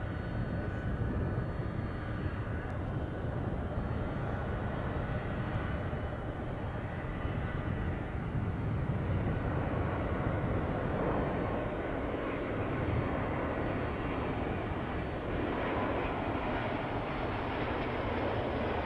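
Airbus A350-900's Rolls-Royce Trent XWB turbofans on final approach with the landing gear down: a steady jet rumble with a faint high whine. It grows louder as the airliner comes close and passes.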